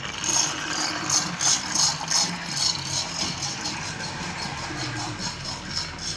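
Lionel 8602 toy steam locomotive running in reverse: its open-frame universal motor hums and the drive rattles on the track. The tender's mechanical sound-of-steam ("bean chugger") unit gives a steady chuff about two to three times a second.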